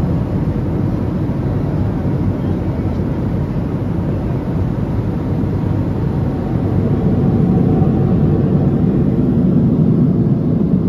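Steady cabin noise of a Boeing 767-300 in cruise: a low rumble of engines and airflow heard from inside the passenger cabin. It gets slightly louder a little past halfway.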